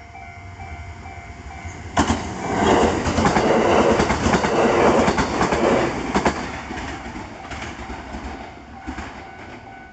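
JR West 683 series limited-express train passing a level crossing at speed. About two seconds in, a sudden loud rush of wheels and running gear breaks in, with sharp clicks of the wheels over rail joints. It fades away over the last few seconds while the crossing's warning bell keeps ringing steadily.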